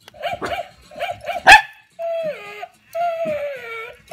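Shetland sheepdog puppy yipping and whining as it reacts to a moving toy dog: quick short yips, one loud bark about a second and a half in, then two long whines that fall in pitch.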